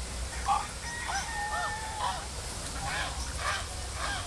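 Waterfowl giving short honking calls, repeated about twice a second in the second half.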